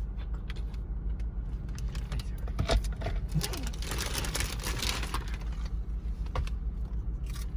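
A clear plastic takeout bag rustling and crinkling as a hand rummages through it, with a sharper crackle about three seconds in, over the steady low hum of a car.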